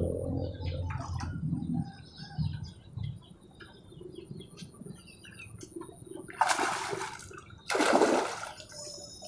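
Pond water splashing and churning as a hooked patin catfish thrashes at the surface, with two loud splashes about a second apart near the end. Birds chirp in the background.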